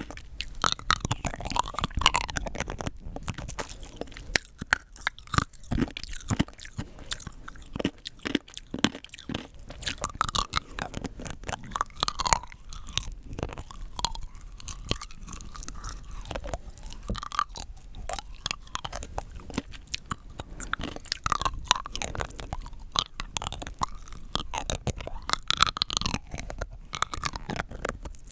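Rock candy crystals being bitten and chewed close to the microphone: a dense, irregular run of sharp, hard crunches and cracks.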